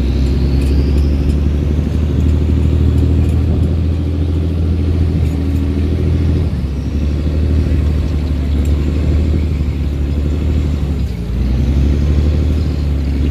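A cargo boat's diesel engine running hard as the loaded boat turns around against a strong current. The throttle eases about halfway through and opens up again near the end.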